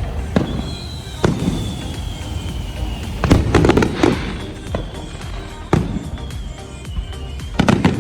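Fireworks bursting: a series of sharp bangs and crackles, heaviest about three to four seconds in and again near the end.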